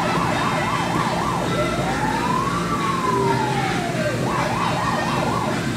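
Electronic siren sweeping quickly up and down in pitch, about four times a second, changing to one slow rise and fall, then back to the fast up-and-down sweep near the end.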